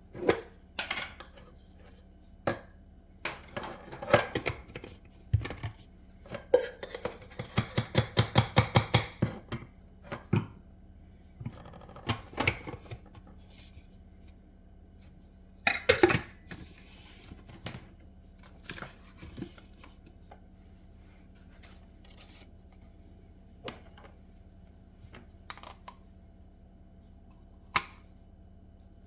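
Household objects being handled: scattered clicks and knocks, with a quick run of about a dozen light, evenly spaced strikes roughly a quarter of the way in, over a faint steady hum.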